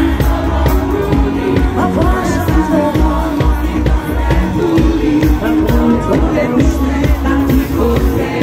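Live pop band playing loud amplified music with a steady bass beat, a woman singing lead into a microphone over it.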